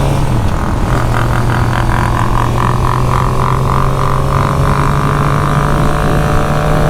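Motorcycle engine running while riding along, with wind noise; the revs dip briefly near the start, then climb slowly and steadily. A pulsing tone repeats about three times a second for a few seconds in the middle.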